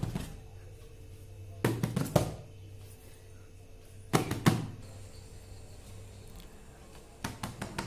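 A gift box being handled close to the microphone: four short clusters of knocks and taps, about two seconds apart.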